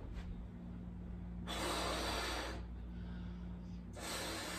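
Breathing while a woman blows up a rubber balloon: two long rushing breaths, about a second each, the first about one and a half seconds in and the second near the end.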